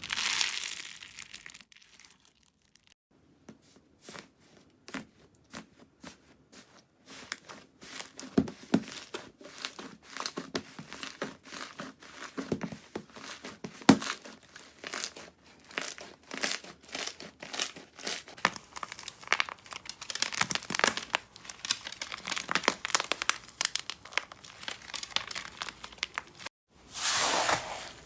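Slime being pressed and stretched by hand, giving many small irregular crackling pops, with a louder sticky hissing tear at the start and again just before the end.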